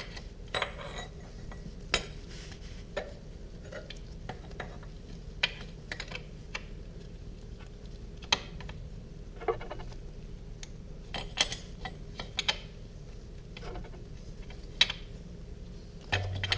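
Metal wrench clicking and clinking against a switch and the engine case in irregular sharp taps, roughly one every half second to second, as the switch is turned in a little at a time.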